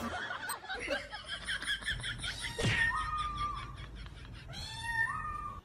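A laughing sound effect of quick, repeated laughs, followed by two drawn-out calls that each slide and then hold on one steady pitch.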